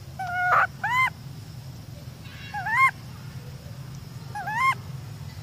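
Infant long-tailed macaque crying: four short, high, arching calls, two close together near the start, one about two and a half seconds in and one near the end.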